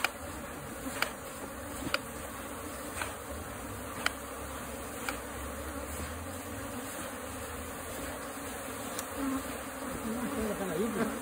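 A mass of honey bees buzzing steadily around the hive and branch as smoke drives them out of the hollow. Light ticks sound about once a second through the buzzing.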